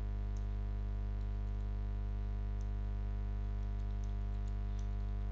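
Steady electrical mains hum, with faint scattered clicks of keys being typed on a computer keyboard.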